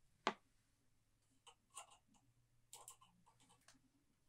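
Mostly quiet handling of small paint jars on a wooden tabletop: one sharp click about a quarter second in, then a few faint taps and soft knocks as a jar is set down.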